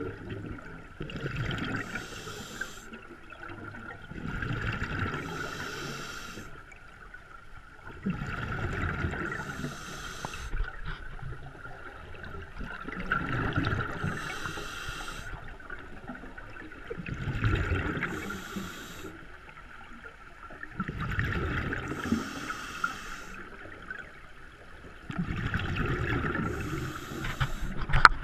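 Scuba regulator breathing close to the microphone: the hiss of each inhalation alternating with the rumbling burble of exhaled bubbles, about one breath every four seconds.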